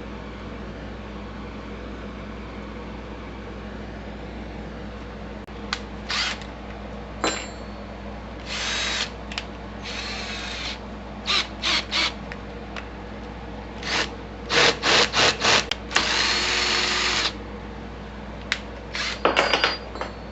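Handheld power drill boring a hole through a bracket, run in short bursts that start and stop repeatedly, after a few seconds of only a low steady hum.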